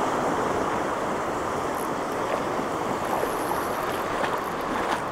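Small sea waves breaking and washing over a sand beach: a steady rushing wash of surf.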